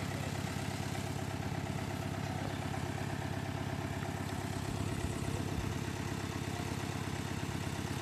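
A motor vehicle's engine idling: a steady low hum with a fine rapid pulse that holds even throughout.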